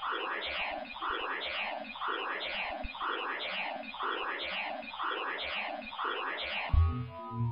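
Synthetic sound made by converting a picture into audio: a noisy electronic texture that repeats about once a second. Near the end, synthesizer keyboard music with low bass notes comes in.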